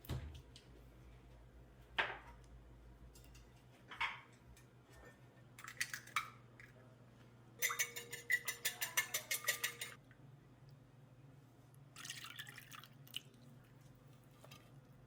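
Small household handling sounds: a few separate taps and clinks, a quick run of rapid clicks lasting about two seconds around the middle, over a low steady hum.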